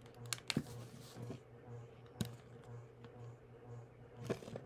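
A few small clicks and taps as a micro USB cable is plugged into a small handheld gadget and the gadget and a power bank are handled on a wooden desk, over a faint low hum that pulses about twice a second.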